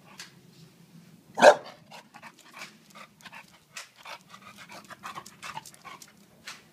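English bulldog panting and snuffling in quick, irregular breaths, with one loud, short gruff outburst about a second and a half in.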